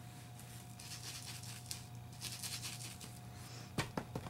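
Foam ink blending tool brushed along the edges of a paper card, a soft scratchy rubbing in a few strokes, then near the end several quick taps as the tool is dabbed on a distress ink pad.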